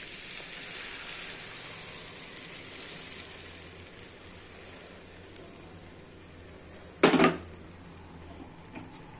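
Beaten egg sizzling as it is poured onto a hot iron tawa over frying vegetables, the sizzle dying down over the first few seconds as the egg spreads. A short sharp clatter about seven seconds in.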